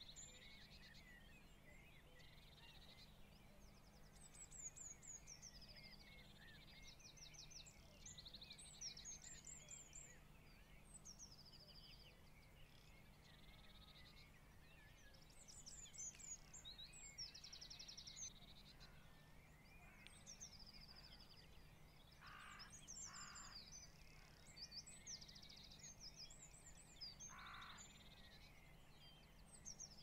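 Faint distant songbirds singing: short high phrases and quick trills repeated every second or two, with a few lower calls in the second half.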